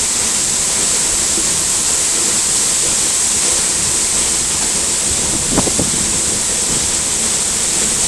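Waterfall in spate heard from right beneath it: a steady, loud rush of falling water, with wind on the microphone and rain. A brief short sound comes about two-thirds of the way through.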